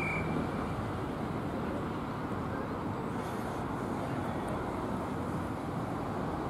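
Steady outdoor background noise with no distinct events, mostly low and even. A single high, steady whistle-like tone fades out in the first half second.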